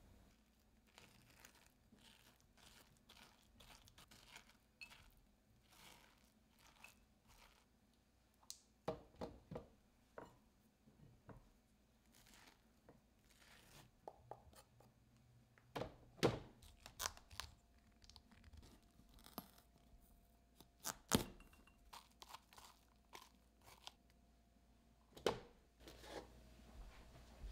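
Quiet, scattered taps, clicks and light scrapes of objects being handled, with a few sharper knocks.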